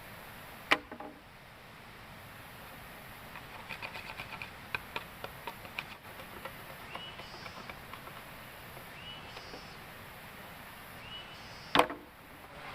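Two sharp knocks, one about a second in and a louder one near the end, with a run of lighter clicks and taps between them, against a faint high hiss that comes and goes.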